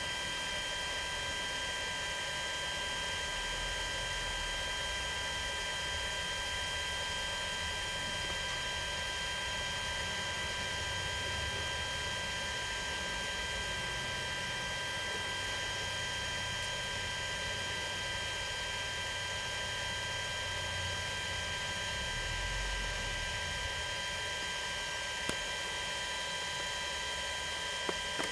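Steady electrical hum and hiss with several high, steady whining tones. A few faint clicks come near the end.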